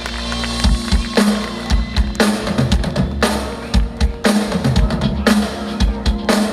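Live band playing an instrumental passage: a drum kit keeps the beat with frequent bass drum hits and a snare strike about once a second, over sustained pitched notes.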